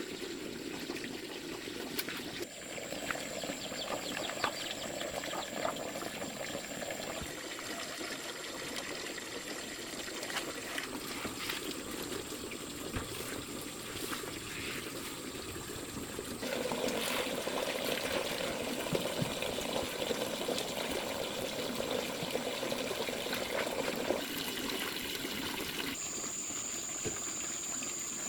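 Water trickling and pouring, in stretches that change abruptly from one to the next, with a thin steady high tone above it.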